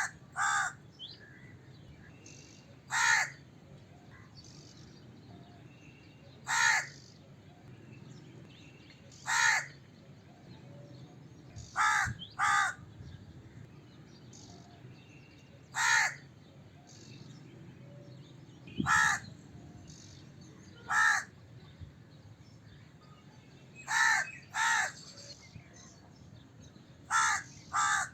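Crow cawing: single harsh caws every two to three seconds, some in quick pairs, about a dozen in all.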